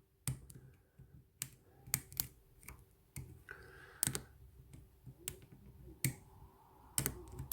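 Short hook and tension wrench working the pins of an ISEO euro cylinder lock: irregular light clicks and taps, about one or two a second.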